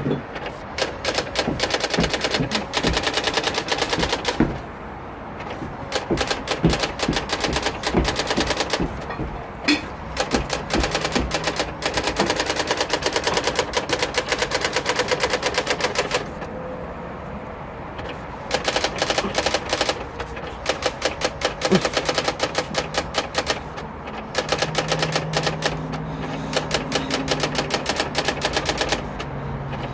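Brother GX-6750 daisy wheel electronic typewriter typing its built-in self-demo on its own: long runs of rapid daisy-wheel strikes, broken by a few short pauses.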